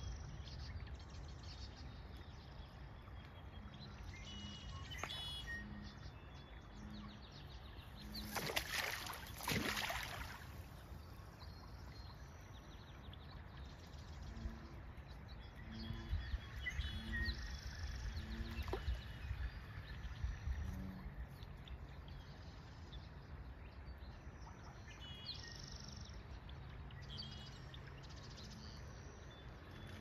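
Small wild birds chirping and calling intermittently around a pond, over a steady low rumble. About eight to ten seconds in come two short, louder bursts of rustling noise.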